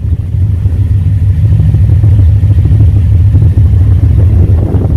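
1970 Chevy C10's V8 idling through headers, a 2.5-inch crossover dual exhaust and 40 series Flowmaster mufflers dumped before the rear axle with no tailpipes: a steady, loud low rumble. The owner judges it healthy.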